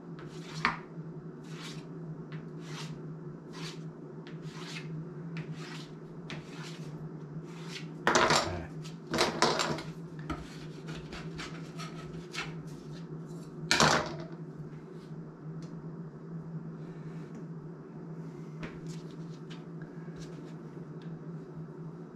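Chef's knife cutting through rolled dumpling dough and tapping the board beneath, a cut about every half second, with a few louder clatters partway through and sparser taps afterwards. A steady low hum runs underneath.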